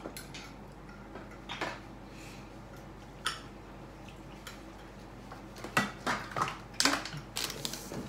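Tableware clatter at a meal: forks and mussel shells clinking against plates and dishes in scattered sharp knocks, with a quick run of clatters about six to seven and a half seconds in.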